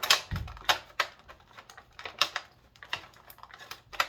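Stiff plastic packaging crackling and clicking in irregular snaps as a figure's accessories are pulled out of the tray, with a dull thump about half a second in.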